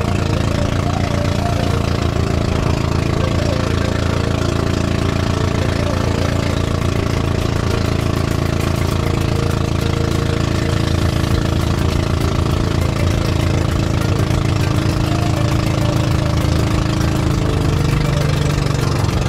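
Engine of a motorized outrigger bangka running steadily while the boat moves, with a fast, even chugging beat.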